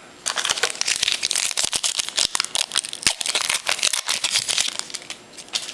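Crinkling and rustling of a foil trading-card pack and its cards being handled, a dense run of small crackles and clicks.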